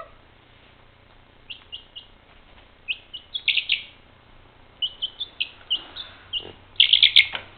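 A young chicken chick peeping in a run of short, high peeps, each falling in pitch. The peeps come quicker and louder near the end.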